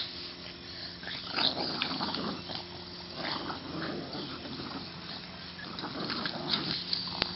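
Two Boston Terriers growling in play as they tug at a rope toy between them, in short irregular bouts.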